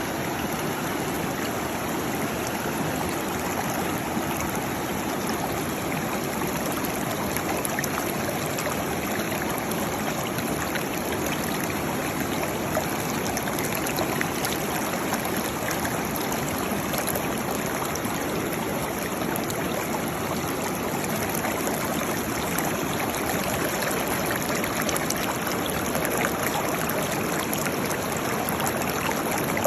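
Waterfall: water falling and splashing in a steady, even rush with no pauses.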